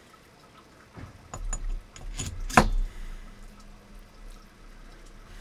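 Handling of a metal fly-tying vise and its parts: a run of small clicks and knocks with low handling thumps, the loudest a single sharp click about two and a half seconds in.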